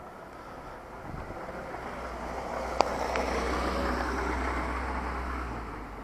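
A motor vehicle driving past, its engine and tyre noise swelling to a peak about four seconds in and then fading, with one sharp click near the middle.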